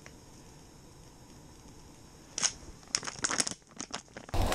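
Plastic pouch of Fish Crisp breading mix crinkling in the hands: quiet at first, then a quick rustle about two seconds in and a run of sharp crinkles.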